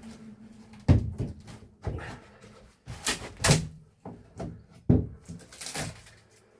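Irregular wooden knocks and bangs, about six, from the old HVAC return's plywood and framing being pried and struck apart, with a couple of short rasping scrapes. The loudest bangs come about a second in and near five seconds in.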